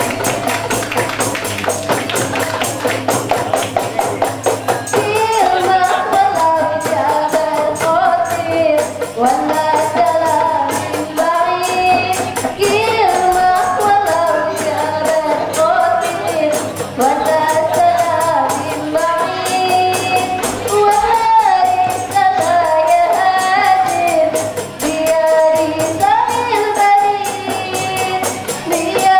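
Qasidah rebana music: a group of rebana frame drums beating a steady rhythm under a woman singing through a microphone. The drumming is most prominent in the first few seconds, then a solo female voice with long, ornamented gliding lines takes the lead about five seconds in.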